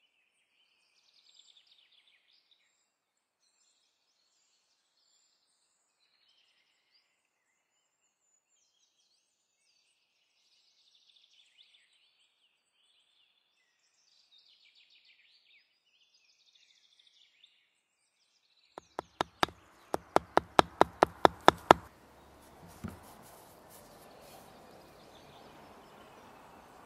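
Faint songbird chirping, then about two-thirds of the way through a quick run of about a dozen sharp knocks over some three seconds, the loudest sound. After the knocks comes a steady hiss of background noise with one dull thump.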